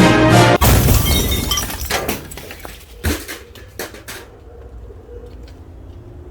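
Music cuts off with a sudden loud crash of breaking glass: the Trinitron picture tube smashed open, with shards clinking and rattling down for a few seconds afterwards.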